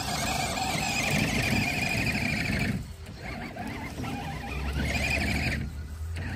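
Axial SCX6 RC crawler's electric motor and geared drivetrain whining under throttle as it climbs through snow. The sound cuts out briefly about three seconds in and again near the end, as the throttle is let off.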